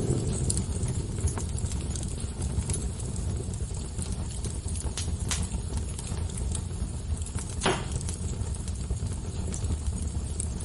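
Fire crackling: a steady low rumble of burning with sharp pops and snaps scattered irregularly, one louder pop about three-quarters of the way through.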